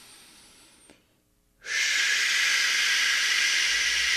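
A faint in-breath through the nose, a short pause, then about a second and a half in a long, steady, loud "shhh" breathed out with the tongue curved towards the upper palate: the Qigong healing sound for wood.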